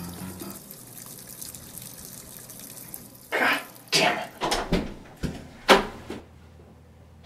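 Water sounds in a bathroom: a faint steady hiss, then a run of five or six loud, short wet splashes about three seconds in.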